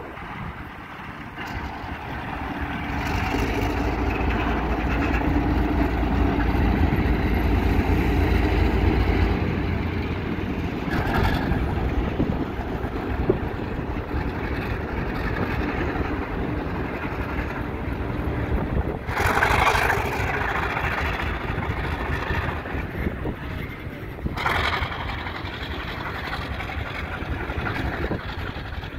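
Diesel locomotive running as it pulls a freight train slowly past, its low engine rumble loudest a few seconds in. Freight cars then roll by on the track, with a few brief rushes of noise.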